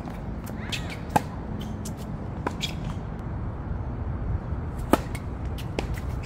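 Tennis balls being struck by rackets and bouncing on a hard court: a few sharp pops, the loudest about five seconds in, over a steady low background rumble.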